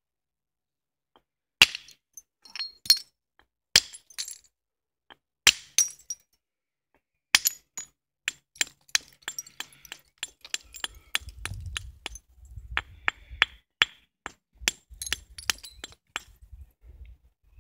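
Flint knapping: an antler hammer striking the edge of a flint handaxe, giving sharp clinking cracks. About five separate blows come in the first seven seconds, then a quicker run of lighter taps and clicks follows, with a faint rubbing of stone handled in the hands.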